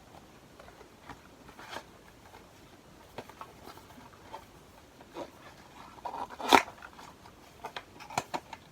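Tissue paper crinkling and cardboard being handled as an advent calendar door is opened, in scattered short crackles with the loudest burst about six and a half seconds in.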